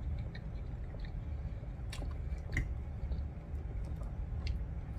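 A person chewing a mouthful of soft, gravy-covered poutine fries, with a few faint clicks scattered through it.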